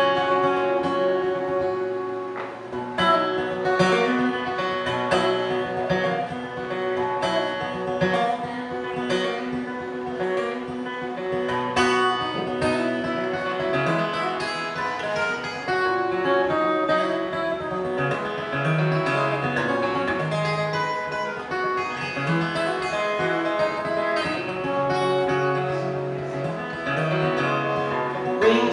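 Acoustic guitar playing an instrumental break in a folk song, with picked notes ringing over held chords.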